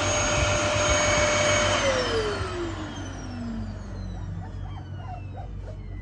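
Vacuum cleaner running with a steady whine, then switched off about two seconds in, its motor pitch falling as it spins down and fades.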